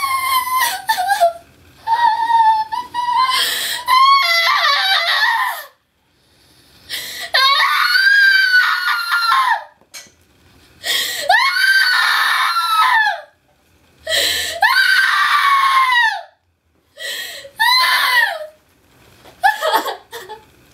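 A woman screaming and sobbing in anguish, acted for a film scene: a string of long, high-pitched screams, many sliding down in pitch as they end, broken by short gasping pauses.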